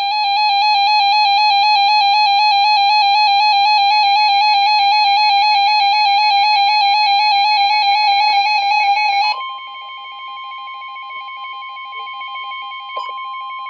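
Weather radio alert tones: a loud, evenly warbling alarm tone for about nine seconds, then a drop to a quieter steady single tone, the NOAA Weather Radio warning alarm tone that signals an emergency warning is about to be read.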